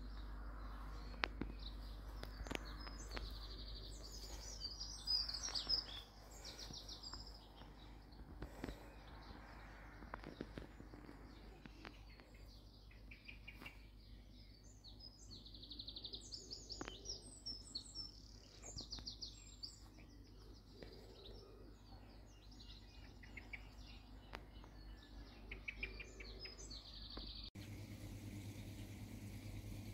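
Small birds chirping in repeated short calls over a steady low hum. About 27 seconds in the birdsong stops abruptly and only a different steady hum remains.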